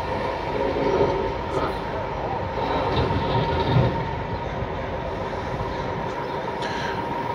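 Heavy tow truck's diesel engine running as it drives slowly up an alley towing a food truck, with a steady high whine over the engine noise.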